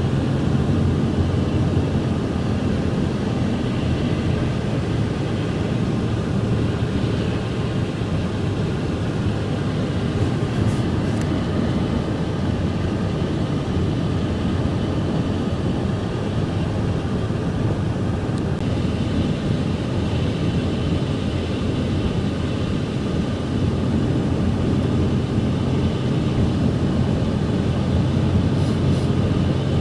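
Steady rumble of a car driving, engine and road noise heard from inside the cabin.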